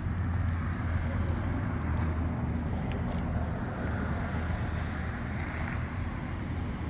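Steady low rumble of a car's road and engine noise while driving.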